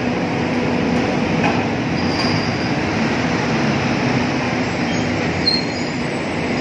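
Terminal tractor's diesel engine running steadily as it drives off, with a couple of brief high squeals.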